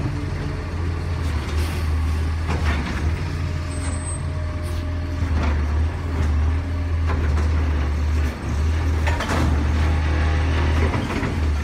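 Autocar refuse truck's engine running steadily at the curb while its New Way Sidewinder automated side-loader arm grabs a wheeled trash cart, empties it into the hopper and sets it back down, with several clanks of the cart and arm.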